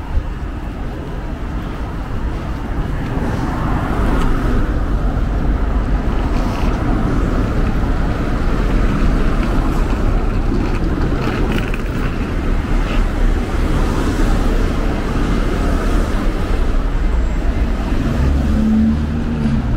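City street traffic: a steady rumble of passing cars that grows louder about four seconds in, with an engine hum near the end.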